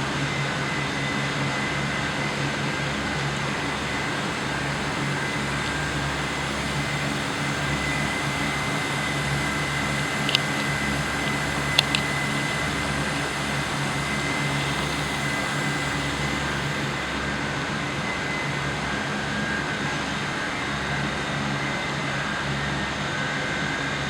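Air source heat pump running steadily: a fan and compressor hum with a few steady tones over it. Three short clicks come near the middle.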